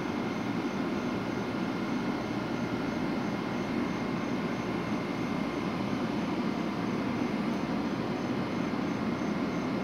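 Steady whir and hum of a stationary Amtrak ACS-64 electric locomotive's cooling blowers and equipment, with faint steady high tones and a soft, evenly repeating high pulse running through it.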